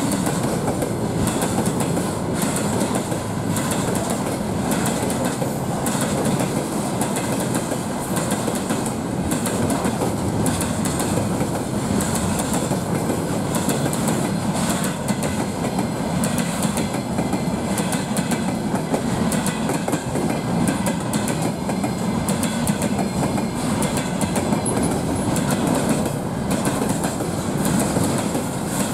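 Freight train of loaded container flatcars rolling past, a steady rumble of steel wheels on rail with frequent clicks as the wheels cross rail joints.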